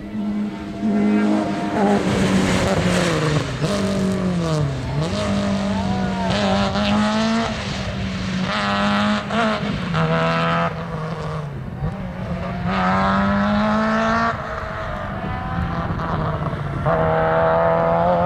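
Rally car engine revving hard on a stage. Its pitch climbs and then drops again and again through gear changes and braking, with a few sharp cracks.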